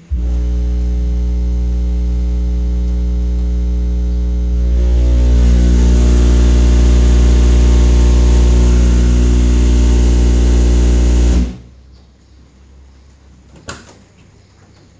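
Two 15-inch Machete subwoofers on a Pride amplifier in a Fiat Panda's boot playing a very loud, steady deep bass test tone for an SPL measurement, buzzing with overtones; it steps up louder about five seconds in and cuts off suddenly about eleven seconds in, a run that read 152 dB. A sharp click follows near the end as the car door opens.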